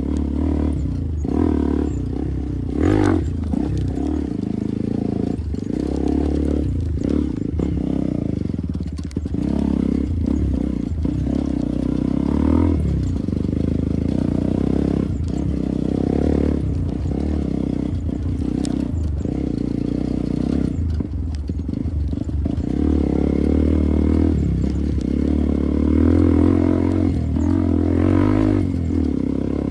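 Motorcycle engine running under way, its pitch rising and falling as the throttle changes, with scattered short knocks and rattles.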